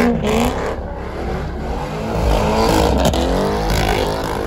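Car engine revving hard, its pitch climbing and dropping several times.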